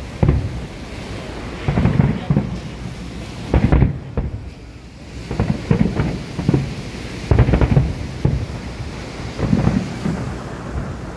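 Fireworks aerial shells bursting overhead in a string of heavy, rolling booms, one every second or two, with crackle between them.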